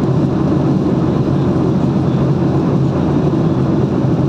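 Steady low rumble of a car in motion, heard from inside the cabin: road and engine noise.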